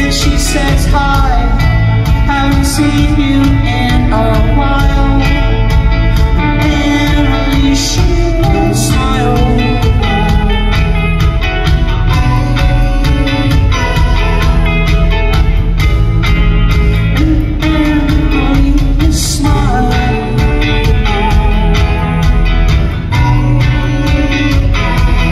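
Live rock band playing loudly: electric guitars over bass and drums, with a steady beat.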